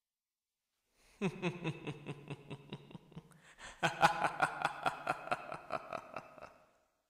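A man's low laugh in two bouts of quick pulses, the second bout louder and starting about four seconds in.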